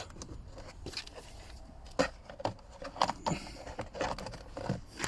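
Plastic lower steering-column cowl of a Ford Fiesta being worked free and pulled off: a series of short plastic clicks, knocks and scrapes, spaced about a second apart.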